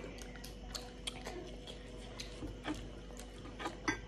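Close-up eating sounds: chewing and mouth noises with scattered soft clicks, the strongest near the end as noodles are lifted with a fork from a steel bowl, over a faint steady hum.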